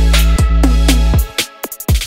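Electronic background music: a heavy sustained bass under regular drum hits. The bass drops out a little past halfway, leaving a quick run of drum hits near the end.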